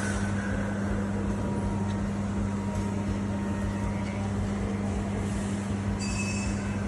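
Steady machinery hum: a constant low electrical drone over a wide even noise. A faint high whine shows briefly near the end.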